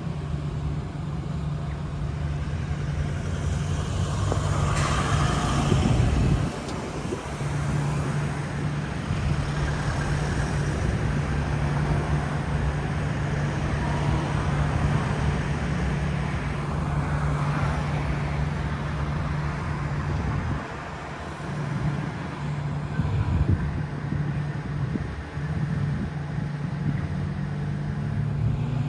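Road traffic with a steady low engine hum, which drops out briefly twice.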